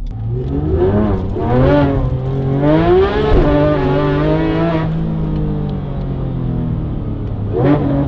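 Porsche GT3 RS's naturally aspirated flat-six with a valved aftermarket exhaust, heard from inside the cabin: it revs up in several rising pulls over the first few seconds, holds high revs briefly, then drops to steady lower revs, with one more quick rev near the end.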